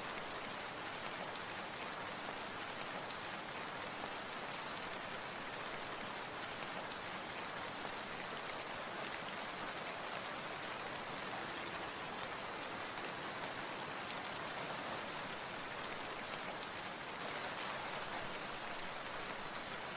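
Steady rain falling, an even hiss of water with no pauses or single loud drops.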